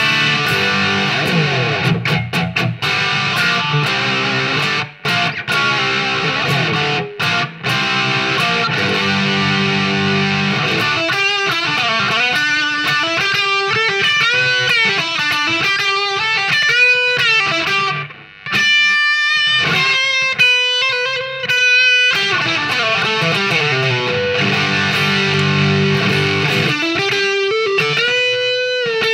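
Epiphone Les Paul Standard Pro played through a Marshall MG30FX amp on its OD1 overdrive mode, turned up full, with reverb. Low distorted chord riffing with short breaks gives way in the middle to single-note lead lines with string bends and vibrato, then a few short high notes, and the chord riff returns near the end.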